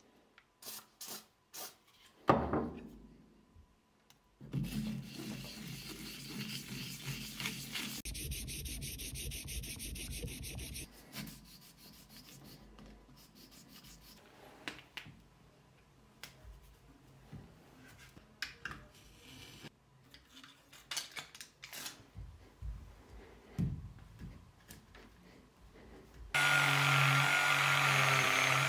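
Metal type plate rubbed back and forth on abrasive paper over a flat steel block: a scraping of sanding strokes, loudest for several seconds after a sharp knock, then quieter and broken up. Near the end a small rotary tool with a felt polishing wheel starts and runs with a steady whine.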